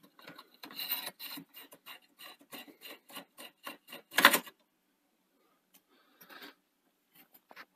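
A screwdriver working screws out of the metal chassis of a Betamax video recorder: a quick run of small clicks, about five a second, ending in one louder click, then a few faint clicks.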